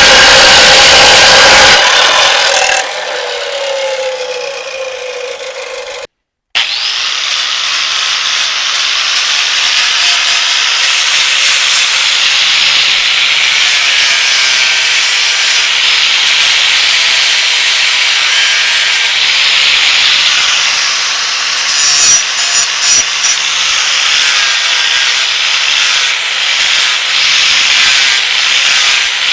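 Power tool cutting through the table-mount bracket. A loud cut stops about two seconds in and the tool winds down with a falling pitch. After a brief gap, another long, steady cut runs over a low motor hum.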